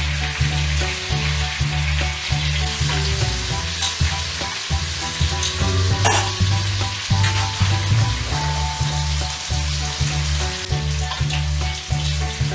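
Rotisserie chicken frying in a little hot oil in a wok: a steady sizzle, with a few sharp clicks of the tongs and spatula against the pan. Background music with a bass line runs underneath.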